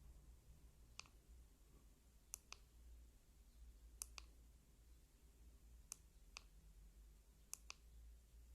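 Wurkkos FC11 flashlight's push-button switch being pressed: one faint click, then four double clicks a couple of seconds apart, attempts to get the light into an eco mode that it won't enter.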